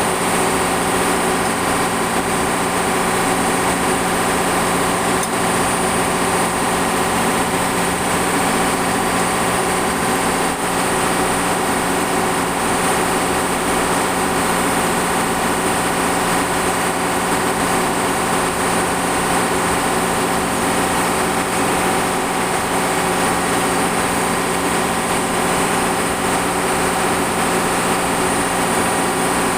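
Ship's machinery running steadily: a constant loud drone with several steady tones under an even hiss, unchanging throughout.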